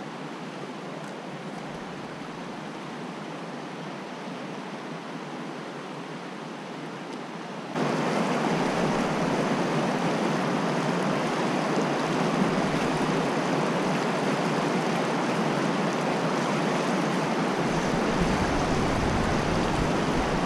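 Fast-flowing creek water rushing steadily. About eight seconds in it abruptly becomes much louder and stays that way.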